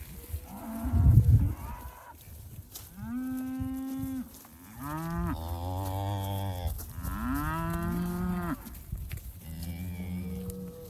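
Murray Grey cattle mooing: four long, drawn-out calls at different pitches, some overlapping, after a loud low burst about a second in.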